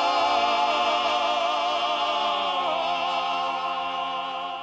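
Barbershop quartet of men's voices singing unaccompanied in four-part close harmony, holding one long chord with vibrato. The bass slides down to a lower note about halfway through, and the chord starts to fade near the end.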